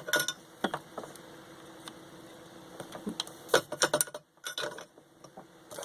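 Scattered clicks and knocks of small parts and tools being handled on a workbench during electronics repair, a few near the start and a quick cluster about three and a half seconds in, over a faint steady hum.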